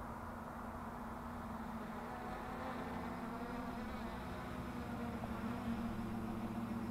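Quadcopter's electric motors and propellers buzzing steadily with a held pitch, growing louder as it flies in close and hovers.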